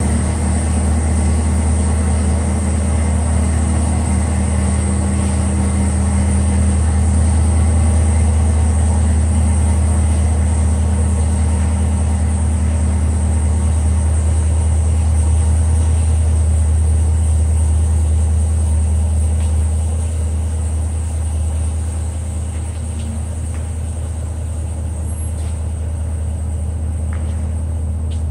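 Chevrolet Camaro ZL1's supercharged 6.2-litre V8 idling with a low, steady note, getting a little quieter about two-thirds of the way through.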